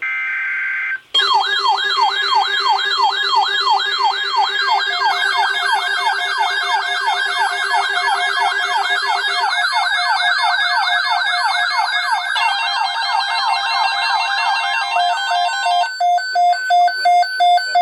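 Electronic emergency alert tone for a tornado watch. After about a second of buzzing data noise, layered siren-like wails rise and fall rapidly, two or three a second, over a steady lower tone. Near the end they give way to fast pulsed beeps.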